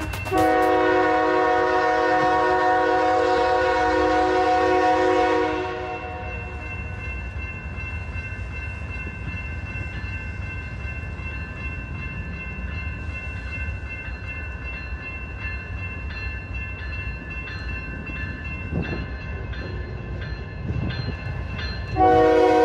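A BNSF freight locomotive's multi-note air horn sounds one long chord blast for several seconds. After it, a grade-crossing warning bell rings steadily over the low rumble of the approaching train. The horn blows again near the end.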